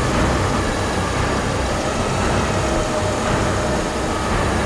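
Heavy diesel machinery running hard under load, a loud, steady rumble as dozers and a heavy wrecker strain to pull a bogged-down 70-ton excavator from deep mud.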